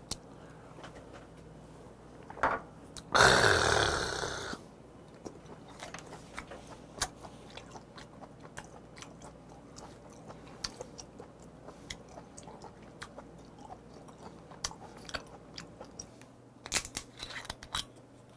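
Close-miked wet chewing of a mouthful of thick-cut raw red sea bream sashimi, with small clicks and smacks. A loud breathy burst comes about three seconds in, and a few sharp glassy clinks from a bottle and glass come near the end.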